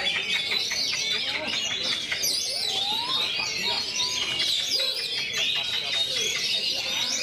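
Oriental magpie-robin (kacer) singing a dense, continuous song of rapid, varied whistles, chirps and trills.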